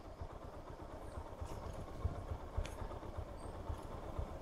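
Yamaha Lander 250's single-cylinder four-stroke engine running at low speed as the motorcycle rolls along a dirt track, with irregular low thumps, the strongest about two seconds in.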